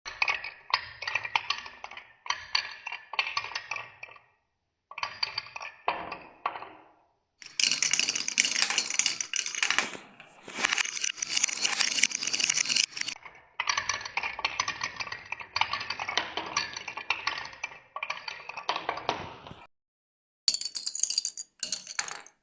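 Balls rolling and clattering down a wooden marble run, a fast stream of clicks and knocks against the wooden track pieces and cups. It comes in several separate stretches that cut off abruptly, the loudest and brightest in the middle.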